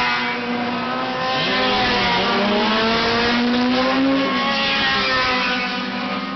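Race car engines running hard on the circuit, several at once, their pitch climbing through the gears and dropping, with one engine revving up until about four seconds in and then falling away.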